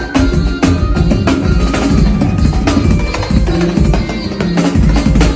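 Drum kit playing a fast, busy fill of many quick strokes over forró band music with bass and held keyboard notes.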